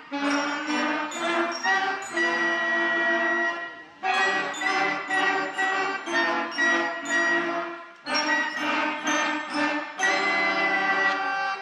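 Beginner school concert band of brass and woodwind players, in their third month on their instruments, playing a piece in phrases of about four seconds with a brief break between them.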